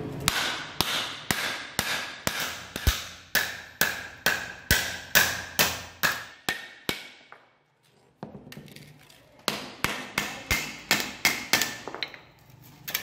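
Wooden mallet beating a stainless steel disc against a steel block, steady blows about two a second, each with a short metallic ring, as the disc is shaped into a shallow dish. The blows pause for about a second midway, then start again at a quicker pace.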